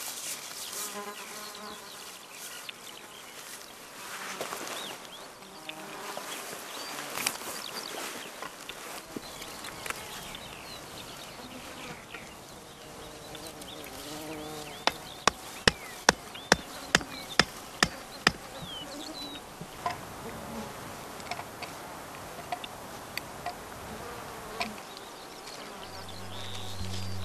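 Flies and other insects buzzing over a summer meadow. In the middle comes a run of about ten sharp clicks, a few per second. A low steady hum comes in near the end.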